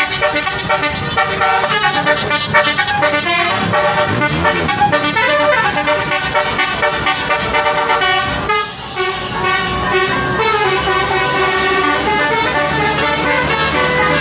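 Telolet horn on a Basuri bus, a set of musical air horns playing a melody of quick, changing notes, with a brief break about eight and a half seconds in.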